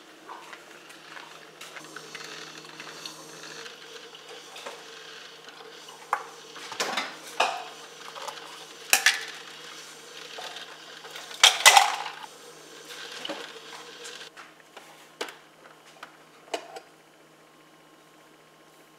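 Clinks and knocks of a glass and a plastic cup being handled and set down on a granite countertop, with a louder clatter about twelve seconds in as the cup is emptied into the glass. A steady low hum runs underneath and stops about fourteen seconds in.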